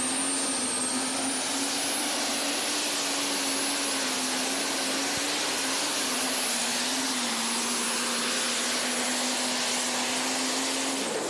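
Case IH super stock diesel pulling tractor engine running flat out under full load while pulling the sled, with a high turbocharger whistle that rises over the first two seconds and then holds. The engine winds down at the very end as the pull finishes.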